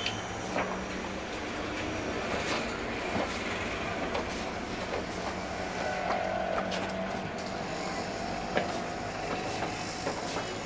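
Thick wallpaper sample book pages being turned and handled: scattered short rustles and taps over a steady background rumble.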